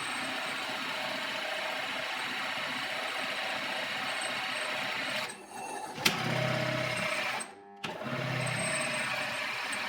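A small power tool running steadily, cut off briefly twice, with a sharp click about six seconds in.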